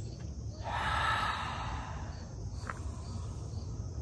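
A man taking one slow, deep breath through the mouth, lasting about a second and a half and starting about half a second in, with faint crickets chirping behind it.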